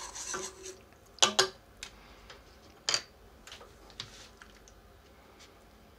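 A wooden utensil swishes water around in a nonstick frying pan. About a second in come two loud, sharp clacks of kitchenware, then another knock a few seconds in, and near the end a soft rustle of a hand handling a plastic food tray.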